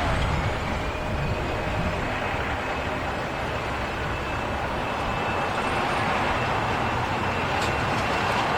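Jet airliner engines running: a steady rumbling roar with a thin high whine that climbs slightly in the first second and then holds. Wind buffets the microphone underneath.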